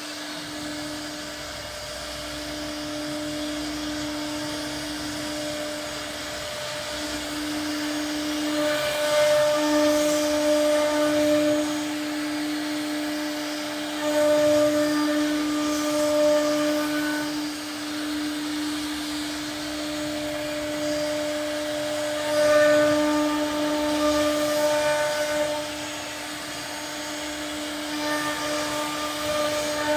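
CNC router spindle whining at a steady high pitch while it cuts a door panel. The cutting noise swells louder several times as the bit works through the material.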